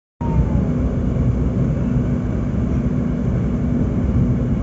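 Steady low rumble of a moving passenger train heard from inside the carriage: wheels running on the rails with a constant low hum.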